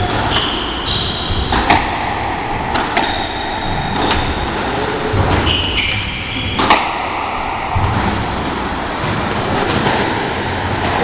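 Squash ball being struck and smacking off the court walls in a few sharp cracks, with players' shoes giving short high squeaks on the wooden court floor.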